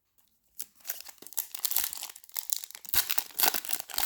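A foil trading-card pack wrapper being torn open and crinkled, a dense crackling that starts about half a second in.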